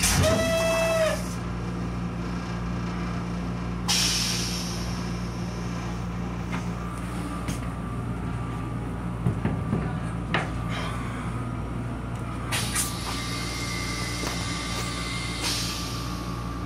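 Steady hum and rumble of a Metro-North M7 electric railcar, heard from inside its small restroom. A brief pitched tone sounds in the first second, followed by a few hisses and small clicks.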